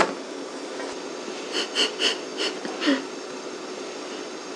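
A cake pan knocks once on a wire cooling rack. About a second and a half later comes a short run of breathy, stifled laughter, five quick pulses ending in a falling note.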